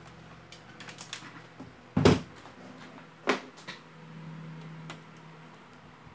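Flat flex ribbon cables and their plastic connectors on an LCD TV's T-con board being handled and reconnected by hand: a scatter of light clicks, with two sharper knocks about two and three seconds in.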